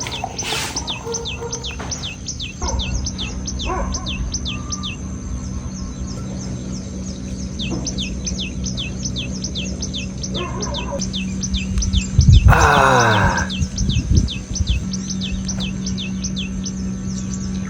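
A bird chirping over and over, short downward chirps a few times a second, over a steady low hum. About twelve seconds in, a louder noise sweeps down in pitch for about a second.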